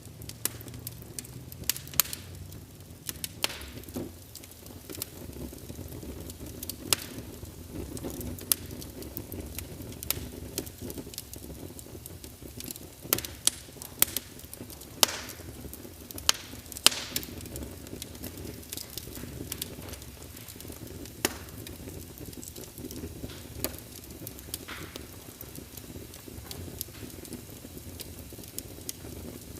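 Wood fire burning in a fireplace: a steady low rumble with frequent irregular crackles and sharp pops, the loudest snaps about halfway through.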